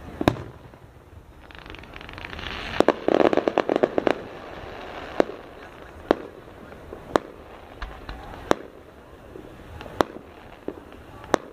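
Fireworks going off: sharp bangs of bursting shells about once a second, with a dense run of crackling pops about three seconds in.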